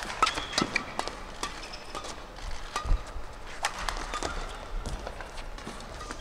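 Badminton rally on an indoor court: players' shoes squeaking and stamping on the court floor, with sharp racket hits on the shuttlecock, over a low arena hum.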